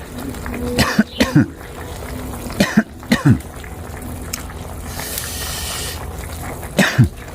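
A man coughing in several short fits, choked by the spicy hotpot he is eating.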